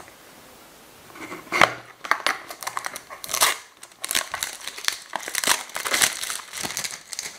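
Packaging being opened by hand: crinkling and tearing in quick, irregular bursts that start about a second in, with a short pause midway.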